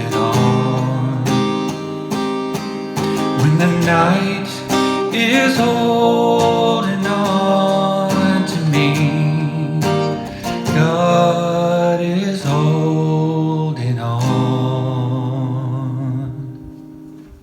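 Strummed acoustic guitar with a voice holding long wordless notes, closing out a song. The last chord rings and fades away just before the end.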